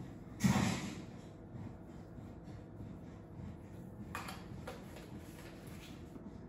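Seasoning shaker being shaken over a metal baking pan: one short rattling shake about half a second in, then a couple of fainter clicks and rattles around four seconds in as the shaker is handled.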